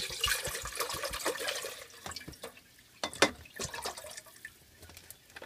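Water pouring from a plastic jug into a metal pot, a steady splashing rush for about two seconds, then quieter, with a single sharp knock about three seconds in.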